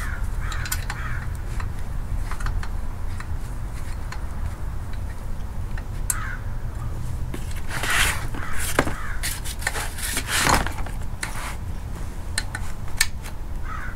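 Crows cawing several times, the loudest calls about 8 and 10 seconds in, over scattered light metallic clicks and taps of hand tools on a car's shift box.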